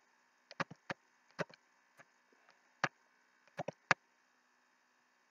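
Computer mouse button clicking, about ten sharp clicks at irregular intervals, some in quick pairs, as numbers are picked one by one on a screen; they stop about four seconds in.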